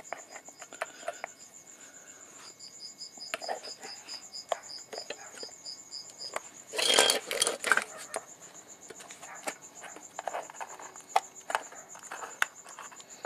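Small clicks and scrapes of a screwdriver prying and digging silicone sealant out of the seam of a vane air flow meter's plastic housing, with a louder scraping burst about seven seconds in. A steady high-pitched pulsing chirp runs underneath.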